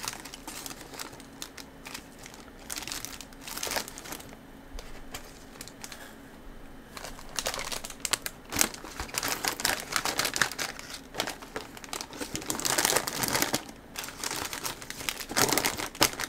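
Plastic snack packets rustling and crinkling as they are handled and packed into a cardboard box, in irregular bursts that grow busier and louder over the second half.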